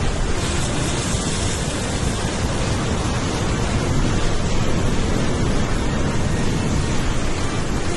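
Surf breaking and washing over coastal rocks, mixed with wind buffeting the camera microphone: a steady loud rushing hiss with a low rumble.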